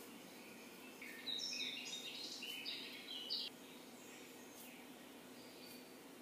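A bird chirping in a quick run of high calls lasting about two and a half seconds, starting about a second in, over a faint low steady hum.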